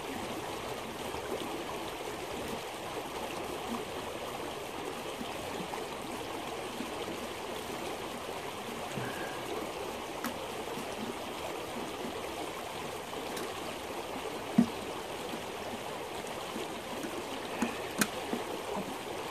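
Shallow stream running steadily over stones. A few light knocks and clicks, the loudest a low knock about three quarters of the way through and a sharp click near the end.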